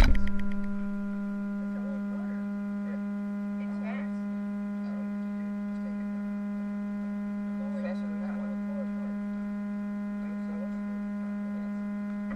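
A steady electrical hum: one low, unchanging tone with a stack of higher overtones.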